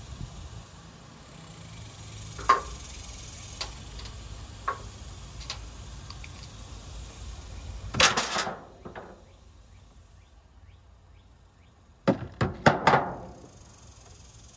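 Discarded items knocking and clattering as someone rummages through a metal construction dumpster. Scattered single knocks are followed by a louder clatter about eight seconds in and a quick run of sharp knocks near the end.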